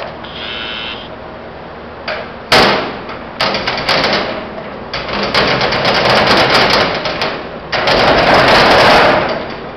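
Heavy steel litter receptacle's door and latch being worked: a loud metal clank about two and a half seconds in, then clicks and clattering rattles as the door's pull-handle latch is handled, with a long loud rattle near the end.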